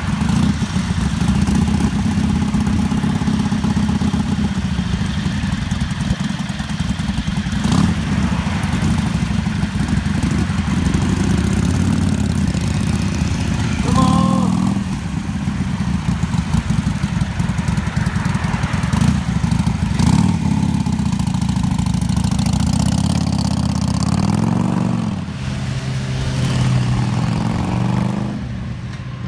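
Several V-twin motorcycles, a Ducati Scrambler and a Harley-Davidson among them, idling together with engine revs rising and falling several times as the bikes pull away. The engine sound drops off near the end as they leave.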